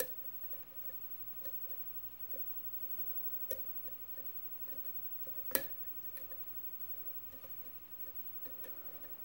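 Faint metallic ticks and taps of a hook pick working the pins of a pin-tumbler lock cylinder held under a tension wrench, with a few sharper clicks, the loudest about five and a half seconds in.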